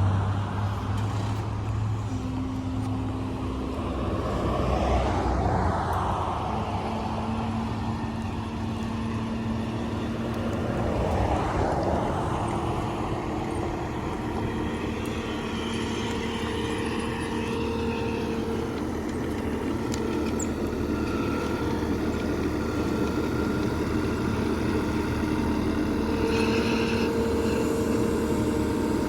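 A large vehicle or heavy machine engine running continuously, its pitch shifting up and down a little with load.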